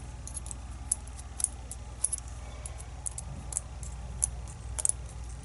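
Light, scattered metallic clicks and taps, about a dozen spread unevenly over a few seconds, as small lock parts and the disassembled cylinder are handled.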